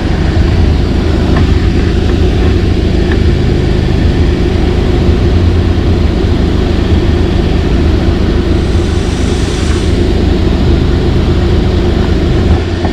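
Hyundai Sonata engine idling steadily after warming up, heard from underneath the car, with its 6-speed automatic gearbox in park circulating freshly filled transmission fluid.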